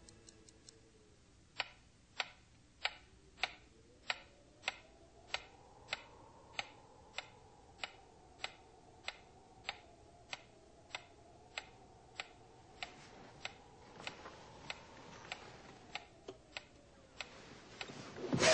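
Pyramid-shaped mechanical metronome ticking steadily, about one tick every 0.6 s, the ticks starting about a second and a half in and growing fainter. A faint, eerie wavering tone rises and falls beneath the ticks.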